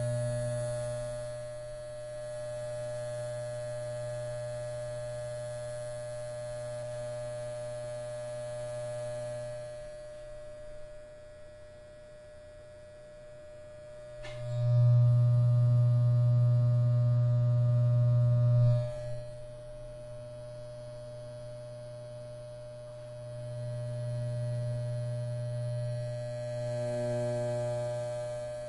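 Electric hair clippers buzzing, a steady low electric drone that swells and fades. It is loudest for about four seconds in the middle, then drops back.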